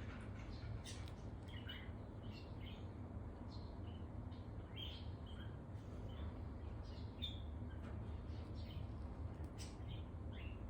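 A pet bird in an upstairs apartment chirping over and over in short, scattered calls, heard faintly over a steady low hum.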